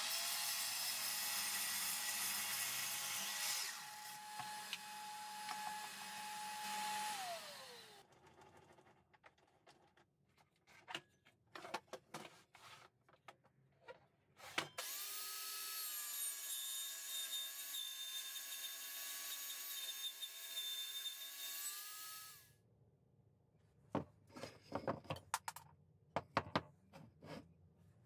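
A sliding mitre saw runs and cuts through a walnut block, its motor whine falling away as it spins down about seven seconds in. After some knocks and handling clicks, a table saw rips an ash board for about eight seconds and cuts off suddenly, followed by a few more knocks.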